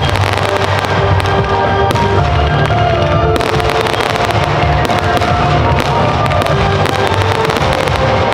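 Fireworks bursting and crackling in quick succession over a musical soundtrack; the bangs and crackle grow denser a little over three seconds in.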